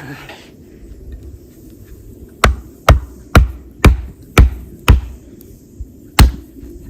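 Sharp chopping strikes into a wooden log: six in quick succession, about two a second, then one more after a pause.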